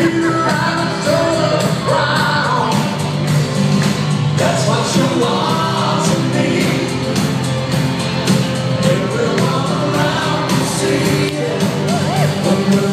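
Live pop song performed by singers with a band, heard from the stands of a large arena.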